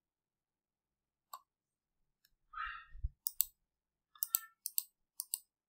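Computer mouse clicking: a single click, then a run of sharp clicks in the second half, with a soft low thump near the middle.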